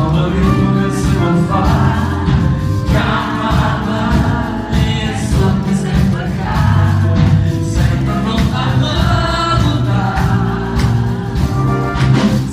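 Live blues band playing: a man singing over electric guitar, bass guitar and drums.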